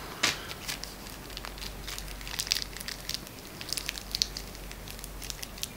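Small clear plastic bag crinkling and rustling as fingers handle and open it: a scatter of short crackles throughout.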